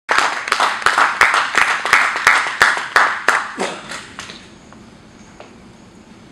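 Audience applauding in a small room, with individual hand claps standing out about three times a second; the applause dies away about four seconds in.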